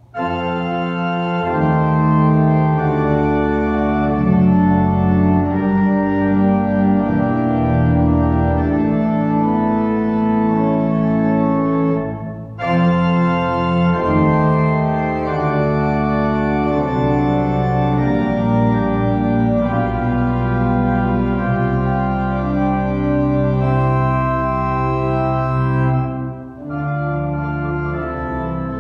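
Organ playing an offertory, a slow piece of held chords that change note by note, with short breaks between phrases about twelve seconds in and again near the end.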